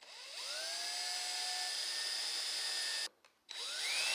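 Small handheld electric power tool run in two bursts, its motor whining up to speed and holding steady each time. It stops for a moment about three seconds in, then spins up again to a higher pitch.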